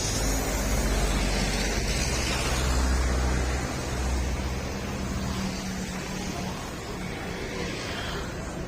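Motorcycle engine running through an aftermarket M4 exhaust muffler, a steady low exhaust note whose deepest rumble eases about halfway through.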